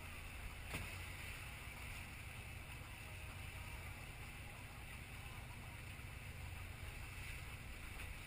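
Steady drone of a sport-fishing boat's engine under way, with water rushing past the hull and one brief knock about a second in.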